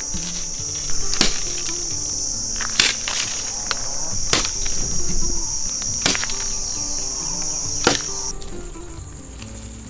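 Crickets chirring steadily in a high, even drone that stops near the end. Over it come five sharp wooden knocks at uneven gaps of about a second and a half to two seconds as a bamboo pole is struck. Soft background music plays underneath.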